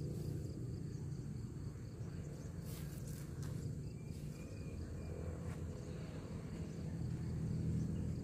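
Steady high-pitched insect chirring over a low steady rumble, with a few faint clicks about three seconds in.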